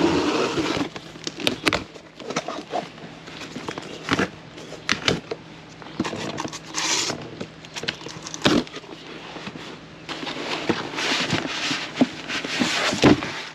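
Cardboard shipping box being opened: packing tape scraped and torn, cardboard flaps pulled back with sharp crackles, then packing foam and plastic wrap rustling as the contents are lifted out near the end.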